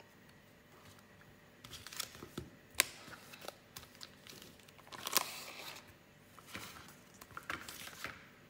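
Foil Pokémon card booster packs crinkling as they are picked up, stacked and set down on a desk mat. The sound comes in short scattered bursts with a few sharp clicks, starting about a second and a half in.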